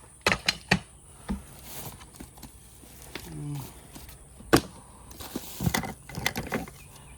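Things being handled and unpacked from a box: a run of sharp clicks and knocks, with short rustles of wrapping about two seconds in and again near the end. A brief murmured voice comes about three seconds in.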